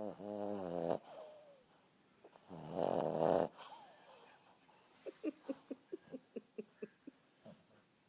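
Boston terrier snoring: a loud pitched snore of about a second, then a second, louder rasping snore a couple of seconds later. After these comes a run of short soft pulses, about four or five a second.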